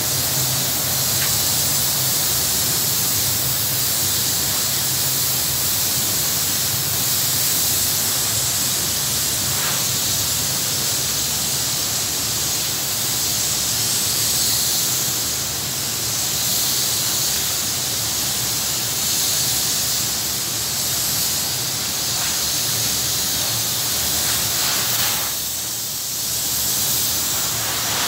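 Phoenix gelcoat spray gun hissing steadily as it sprays gelcoat onto a fiberglass mold, with a low hum underneath. The hiss drops briefly near the end, then resumes.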